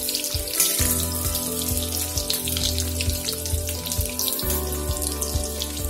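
Halved pointed gourd (parwal) frying in hot oil in a steel kadai over a medium flame: a steady crackling sizzle.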